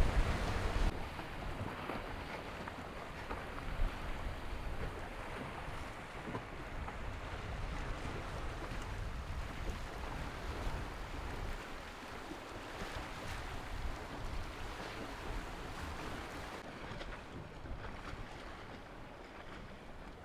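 Wind and sea noise aboard a racing sailboat under way: water washing along the hull and wind buffeting the microphone. It is loudest in the first second, then a steady rush, with the hiss growing duller near the end.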